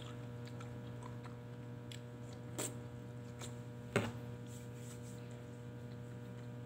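A person biting and chewing a thin crisp snack chip: a few sharp crunches, the loudest about four seconds in, over a steady low electrical hum.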